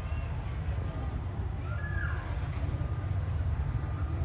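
Crickets chirping in a steady high drone over the low, steady rumble of an arriving diesel train.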